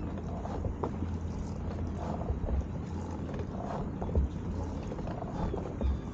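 Wind rumbling on the microphone aboard a paddled boat, with scattered irregular knocks and water sounds from the paddling crew.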